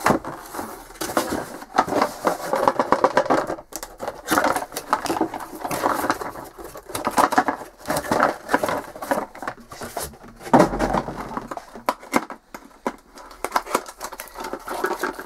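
Cardboard box and packaging being handled on a tabletop: irregular rustling, scraping and light knocks, with a dull thump about eleven seconds in.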